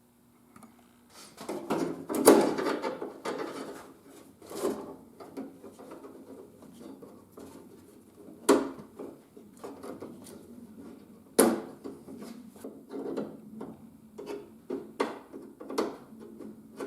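Hand work fitting a Jeep YJ interior door handle and its linkage rod into the door: scattered clicks, rubbing and scraping of the parts. Two sharp knocks stand out, one about eight and a half seconds in and another about three seconds later.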